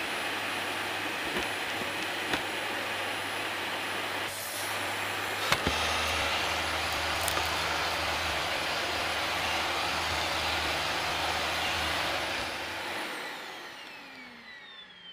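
Dyson cordless stick vacuum running steadily, with a few sharp clicks as it picks up debris. Near the end it is switched off, and its motor whine falls in pitch as it spins down.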